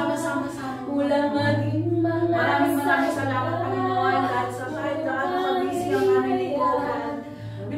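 Women singing a praise and worship song together, accompanied by an acoustic guitar.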